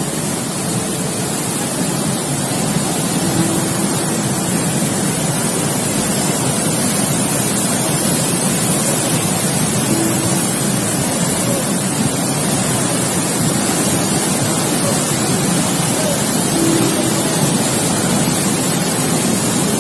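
Flash-flood torrent rushing down a swollen mountain stream: a loud, steady noise of churning muddy water.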